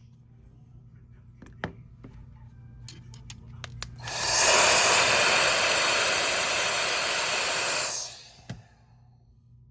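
A steady blast of air hissing for about four seconds, starting and stopping abruptly, preceded by a few light clicks and taps of tools on the bench.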